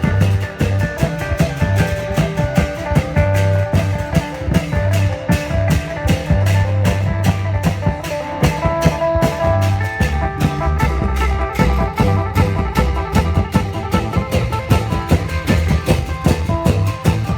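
Isan klong yao (long-drum) band playing procession music: drums and cymbals keep a fast steady beat under a melody line.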